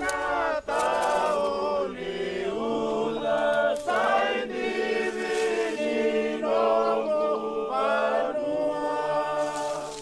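A group of voices singing an unaccompanied chant in harmony, with held notes in phrases a second or two long.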